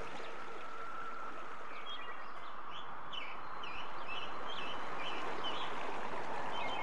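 Steady rushing hiss of running water, getting a little louder about halfway through, with a small bird chirping in quick repeated notes through the middle.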